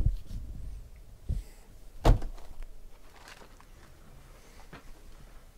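A few dull knocks of cardboard trading-card boxes being set down and stacked on a table, the loudest about two seconds in, then lighter taps.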